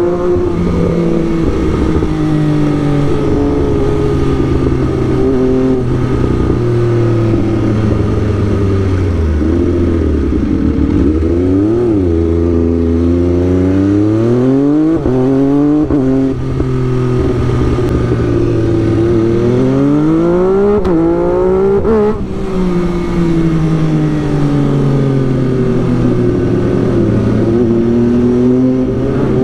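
MV Agusta F3 three-cylinder sport bike engine heard from the rider's seat, revving up and easing off through the gears. Its pitch climbs and falls several times, with sudden drops at gear changes about twelve and twenty-two seconds in.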